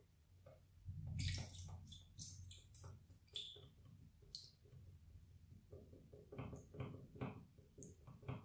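A small plastic spoon stirring liquid white glue, coloured pink, in a plastic bowl: faint, irregular strokes of the spoon scraping through the glue.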